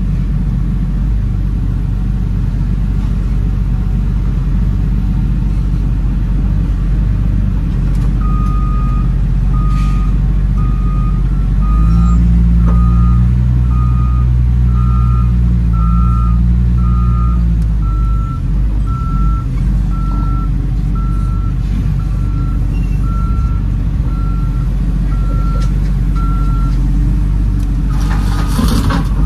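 Cat 930H wheel loader's diesel engine running, heard from inside the cab, with its reversing alarm beeping evenly, about one beep a second, from about a quarter of the way in until shortly before the end. The engine gets louder for several seconds around the middle.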